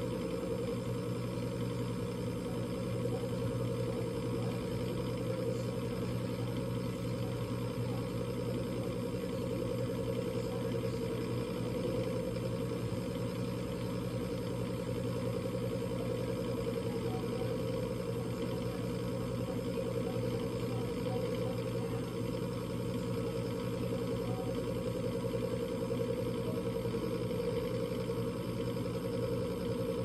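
Coleman Presidential mobile-home furnace's inducer (draft) motor running with a steady hum. The pressure switch is not clicking closed, so the burner doesn't light; the combustion air switch is failing to close, which the technician takes for a probably bad pressure switch.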